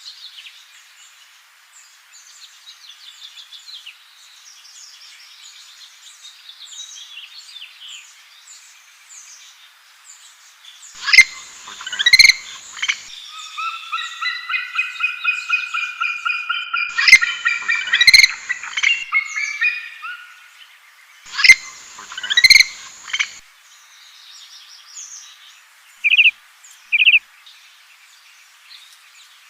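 Birds calling and singing: a background of quick, high chirps, with three loud calls near the middle and, between them, a run of rapid repeated whistled notes.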